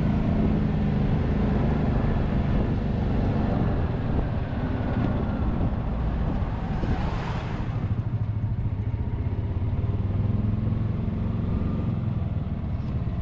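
Golf cart driving along a paved road, its motor running steadily with road and wind noise. About seven seconds in, a passing vehicle makes a brief whoosh.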